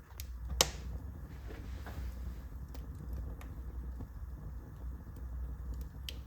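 Wood fire burning in a fireplace: a low steady rumble with scattered sharp crackles and pops, the loudest about half a second in.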